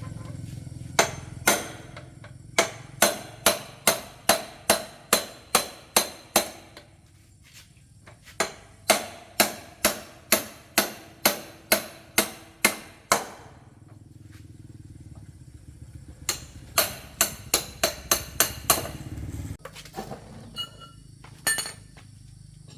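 Hammer striking metal in three steady runs of blows, about two to three a second, each blow ringing briefly, with a low hum underneath that cuts off near the end.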